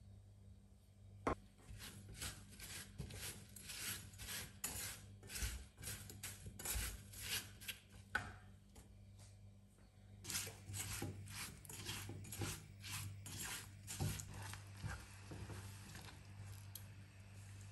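Silicone spatula stirring sugared chopped strawberries in a non-stick saucepan: repeated wet scraping strokes, about two a second, with a short pause about nine seconds in. A single sharp knock about a second in.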